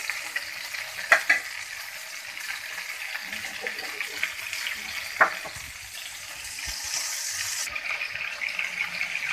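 Onions and tomatoes sizzling in hot oil in a wok while a metal slotted spoon stirs them. A few sharp clinks of the spoon against the pan stand out about a second in and again around five seconds.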